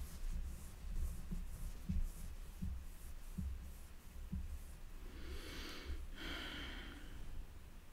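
A woman breathing audibly, a breath in and a breath out a little after the middle, with a few faint soft knocks before it.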